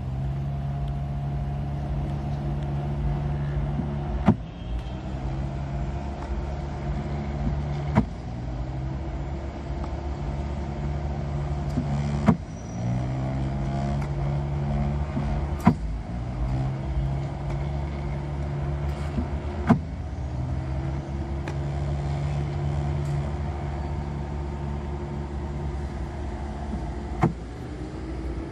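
Homemade tennis ball launching machine running: its motor hums steadily and a ball is fired with a sharp pop six times, mostly about four seconds apart. Each shot briefly pulls the motor's pitch down before it climbs back up.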